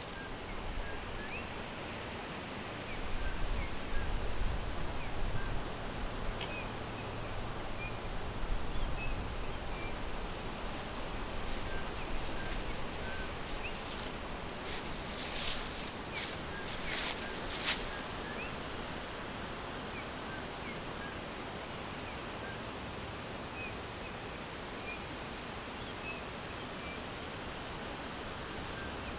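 Forest ambience: faint, short bird chirps scattered throughout over a steady hiss of background noise. A low rumble comes in about three seconds in and fades a few seconds later, and a handful of brief rustles or crackles sound around the middle.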